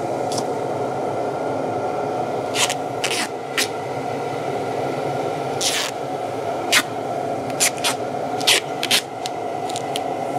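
Duct tape pulled off the roll in about a dozen short ripping bursts and wrapped around the neck of a steel spelter socket. Under it runs a steady shop hum.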